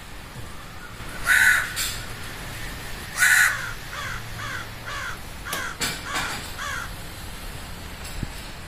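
Crow cawing: two loud caws about two seconds apart, then a quick run of quieter, shorter caws.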